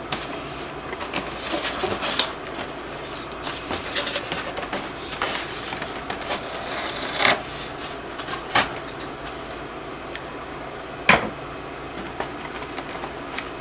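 Packaging being handled as a scale model is taken out of its box: rustling with irregular clicks and knocks of plastic and cardboard, a few sharper knocks standing out, the loudest near the end.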